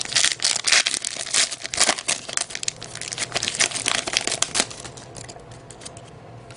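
The plastic wrapper of a trading card pack crinkling as it is torn open and handled, a dense crackling that dies down after about four and a half seconds.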